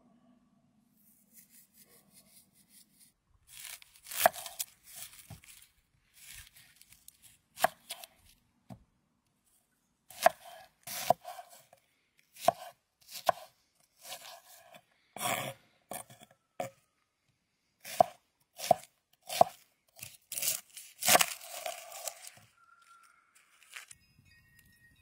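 Hammered-steel chef's knife slicing onion and raw meat on a wooden cutting board: sharp, irregular cutting strokes with the blade knocking against the board, in short runs with pauses between.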